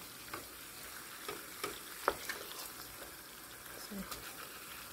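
Milkfish sizzling in a nonstick saucepan as its sour broth cooks down and the dish is almost done. A wooden spatula turns and lifts the fish, giving a few scattered light knocks and scrapes against the pan over the steady sizzle.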